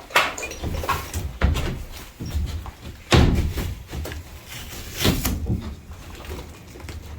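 Irregular knocks and thumps, four or so about a second or two apart, the loudest about three seconds in, over a low rumble.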